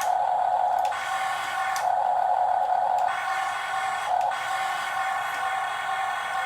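Electric motors and plastic gearboxes of a Huina RC excavator whining steadily. The whine swells louder for the first second, again for about a second from just under two seconds in, and briefly around four seconds in, as further functions are driven.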